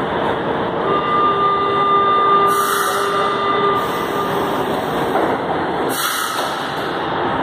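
São Paulo Metro train standing at an underground platform, its equipment running with a steady noise. A steady whine holds for about three seconds from about a second in. Two sharp hissing bursts come, one near the middle and one about six seconds in, the second as the train's doors close.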